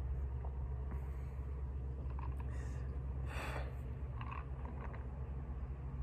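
Steady low background rumble, with a brief hiss about three and a half seconds in.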